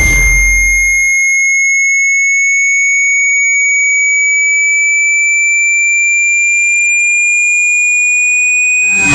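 Hearing-test sine tone: a high, steady pure tone slowly gliding upward in pitch. A brief low thump comes at the start and again at the end.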